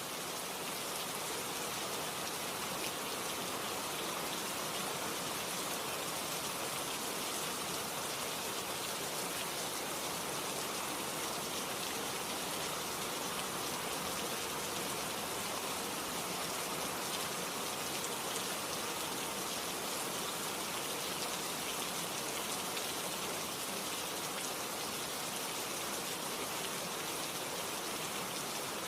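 Steady rain falling and pattering on a surface, an even hiss of many drops with no change in strength.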